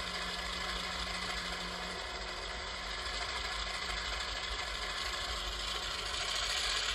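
A LokSound 5 DCC sound decoder plays a diesel locomotive's engine idling through the small speakers of an HO-scale model locomotive. The idle runs steady, with a low hum that cuts out about two seconds in.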